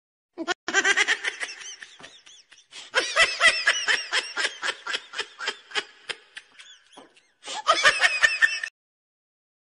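Laughing in three stretches of rapid pulses, each ending abruptly.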